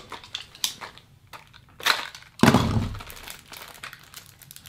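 Handling and tearing open the wrapping of a small cardboard candy box: scattered rustles and clicks, with one loud sudden crack-like thump about two and a half seconds in.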